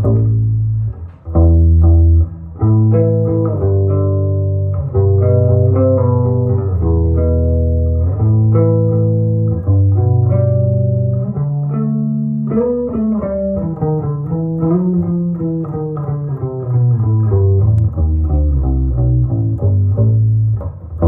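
1962 Hofner 182 electric bass with flatwound strings, played plucked as a run of separate low notes; roughly midway through, the pitch slides between notes.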